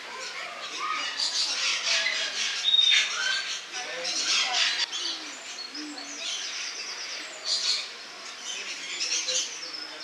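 Lorikeets chattering and screeching, many high calls overlapping, with a clear whistled note that holds and then drops in pitch about three seconds in.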